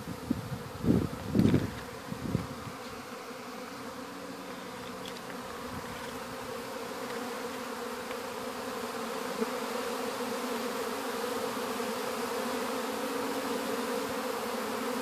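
A honey bee swarm buzzing: a steady drone of many bees in flight around the cluster, getting gradually louder. A few thumps in the first two seconds.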